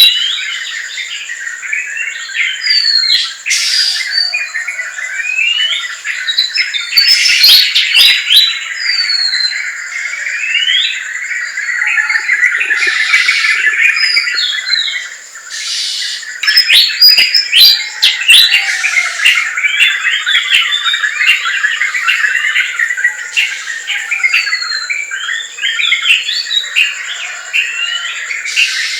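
Forest bird chorus: many birds calling and singing at once, a dense tangle of chirps, short whistles and gliding notes. A steady high-pitched drone sounds underneath.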